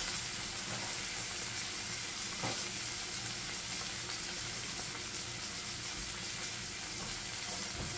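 Chopped onions frying in a pot, a steady sizzle as they brown.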